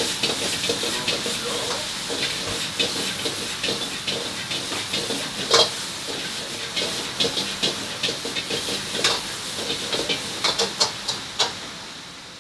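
A large batch of vegetables stir-frying in a pan over high heat, hissing steadily with steam, with frequent sharp clacks of a metal utensil against the pan. The hiss and clatter quieten just before the end.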